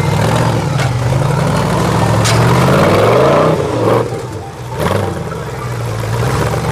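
Off-road rock-crawler buggy's engine running under load and revving as it crawls over rocks, rising in pitch through the middle and dropping back about four seconds in, with a couple of sharp knocks.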